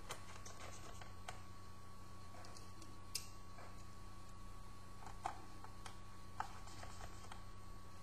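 Scattered small clicks and taps of plastic laptop parts and small screws being handled with a screwdriver, the sharpest a second or two apart, over a steady electrical hum.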